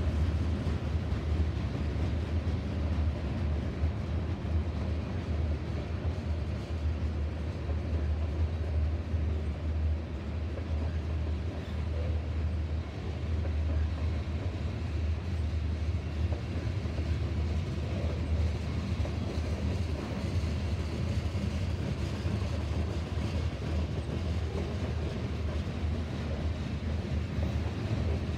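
Long freight train of covered hopper cars rolling past, a steady rumble of wheels on rail with no break.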